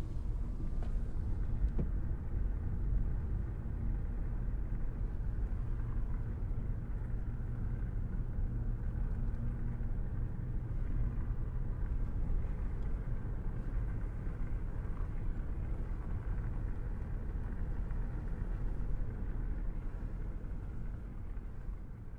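Steady low rumble of city traffic, fading near the end.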